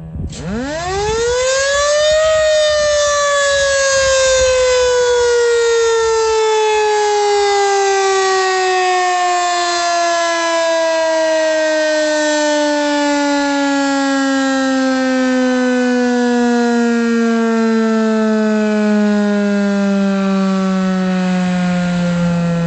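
Federal Signal Model 2 electromechanical outdoor warning siren sounding a single wail. It spins up fast, its pitch climbing steeply to a peak about two seconds in, then the pitch glides slowly and steadily down as the rotor coasts, still winding down at the end.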